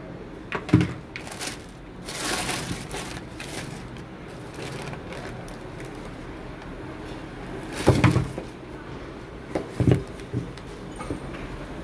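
A few dull knocks, about a second in and twice more near the end, with a stretch of rustling between them, over a steady low hum.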